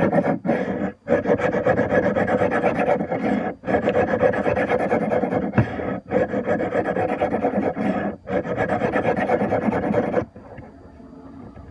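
Steel knife blade scraped back and forth across a coarse diamond sharpening plate wet with honing solution: continuous rasping broken by short pauses about every two seconds, stopping abruptly about ten seconds in. The back-and-forth strokes remove metal quickly from a dull edge.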